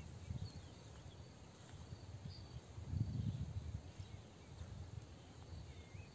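Outdoor ambience: wind buffeting the microphone in uneven gusts, strongest about three seconds in, with faint bird chirps scattered through it.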